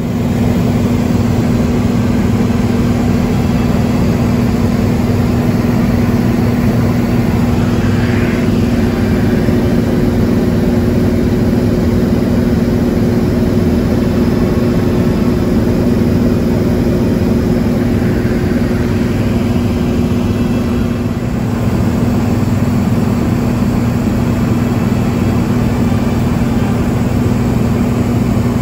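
Piston engine and propeller of a single-engine light aircraft droning steadily in cruise, heard inside the cockpit as a loud, even hum. One higher tone in the drone drops away about two-thirds of the way through.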